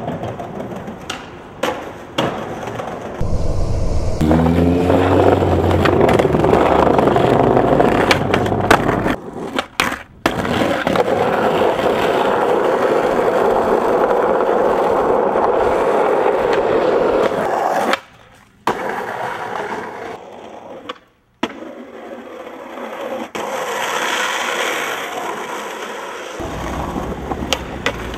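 Skateboard wheels rolling on asphalt and concrete, with sharp clacks of the board popping and landing. The sound cuts off abruptly a few times as one clip gives way to the next.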